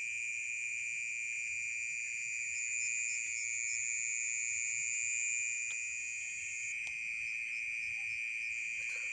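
Steady, high-pitched drone of night insects, two unbroken tones with a fainter pulsing call joining in twice. A couple of light clicks come past the middle.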